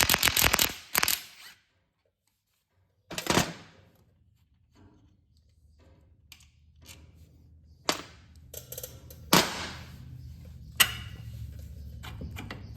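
Hand tools knocking and clicking against the metal suspension parts of a Polaris Ranger side-by-side while its worn rear bushings are worked loose: a few sharp, loud metal strikes a second or two apart over a low steady hum, with a short dead-silent break early on.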